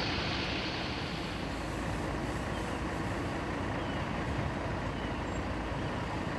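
Diesel engines of parked fire engines running at idle: a steady low rumble.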